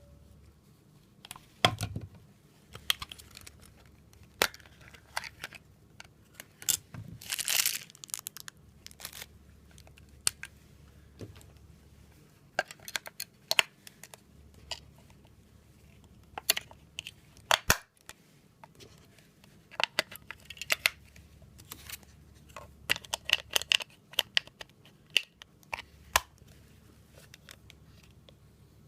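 Handling noise: scattered sharp clicks and taps with short bursts of crinkling rustle, the loudest rustle about seven seconds in.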